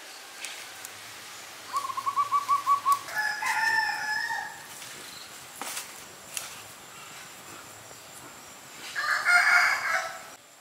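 Bird calls: a quick run of short repeated notes, then a longer call, and another loud call near the end.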